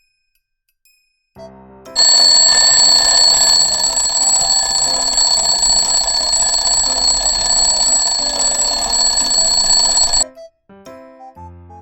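Alarm bell ringing continuously with a fast-rattling clapper and a steady high ring, starting about two seconds in and cutting off suddenly after about eight seconds.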